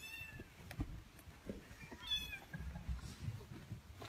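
A cat meowing twice, about two seconds apart: two short, high meows that fall in pitch, with faint low thuds between them.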